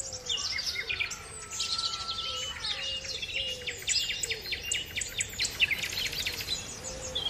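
Several birds singing at once, a busy overlapping mix of quick high chirps and trills.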